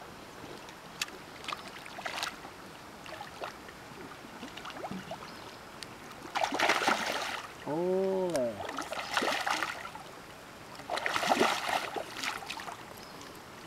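Water splashing in three loud bursts as a hooked carp thrashes at the surface beside a landing net being dipped into a pond. A short hum of a person's voice, rising then falling, comes about eight seconds in.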